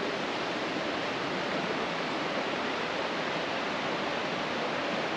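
Fast mountain river rushing over a rocky bed: a steady, even rush of water.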